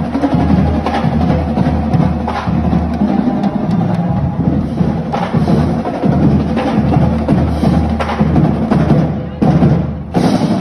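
Loud, drum-heavy music with repeated sharp drum strikes over a deep beat.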